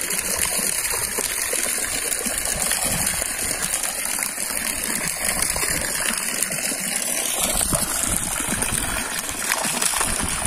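Water pouring from a hose outlet and splashing down onto the surface of a fish tank in a steady rush. The falling water keeps the tank oxygenated.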